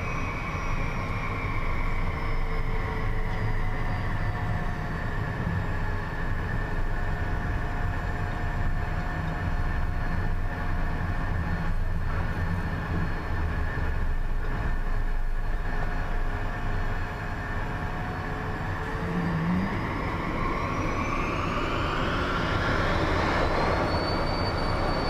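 Twin turbofan engines of a Beechcraft Premier 1A heard from the cockpit: a steady jet whine over a low airframe rumble. Near the end the whine climbs steeply and then holds high as the engines spool up to takeoff thrust.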